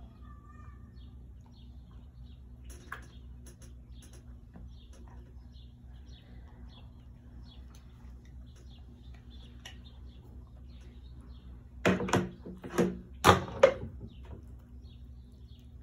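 Faint bird chirps over a steady low hum, then about twelve seconds in a quick run of four or five loud knocks on a plastic high chair tray.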